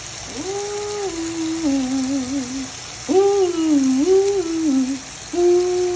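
A woman humming a wordless tune in three drawn-out phrases, her pitch sliding up and down, over the steady sizzle of vegetables sautéing in a pan.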